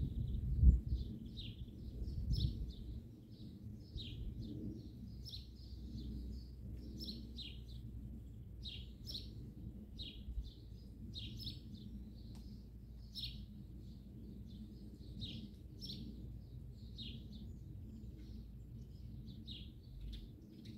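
Songbirds chirping at dawn: many short, high calls repeating all through. Under them a steady low rumble, with a couple of louder low thumps in the first few seconds.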